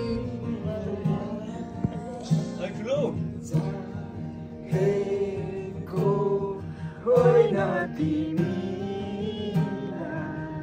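Music: a voice singing long held notes over plucked guitar.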